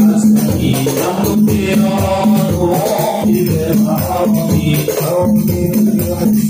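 Group of men singing an Arabic devotional sholawat in unison through microphones, accompanied by steady hand-struck frame drums with jingling percussion.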